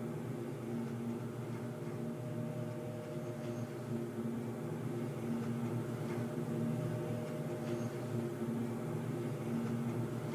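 Underground ambience: a steady low mechanical hum made of several held tones, some of them swelling and fading slowly, over a soft hiss.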